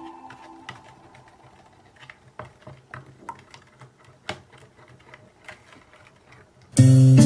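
Scattered soft clicks and taps at an irregular pace, as small objects are handled. Synthesizer music fades out at the start, and strummed guitar music cuts in suddenly near the end.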